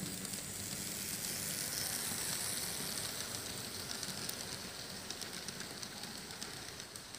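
Kato model DF200 diesel locomotive and coaches running past on model track: a light hissing rattle of small wheels on the rails with fine clicks, swelling to its loudest about two seconds in and then slowly fading as the train moves away.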